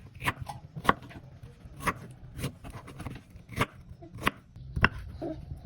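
About seven sharp knocks and clicks at irregular intervals, like hard objects being tapped or set down, over a low steady hum.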